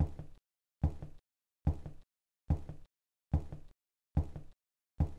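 Cartoon footstep sound effect: the same step sound repeated at an even pace, a little more than one step a second, with silence between steps.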